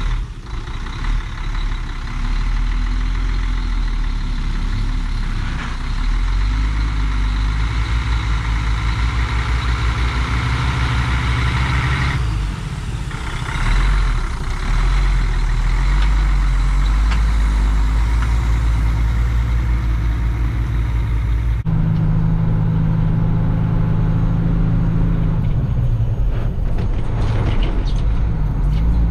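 Heavy vehicle engine running steadily, with an abrupt switch to a different engine sound about 22 seconds in.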